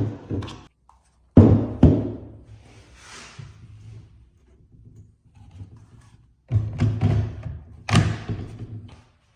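DeWalt 60V brushless 12-inch sliding miter saw being switched on in short bursts, several times: each start comes up suddenly with a low motor hum and dies away within a second or two.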